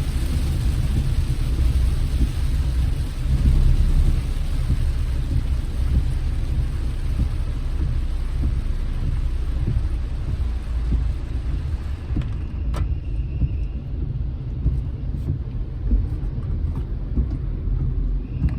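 Car driving in the rain, heard from inside: a steady low road and engine rumble with a hiss of rain and wet tyres that dies away about two-thirds of the way through. There is a single click shortly after the hiss fades.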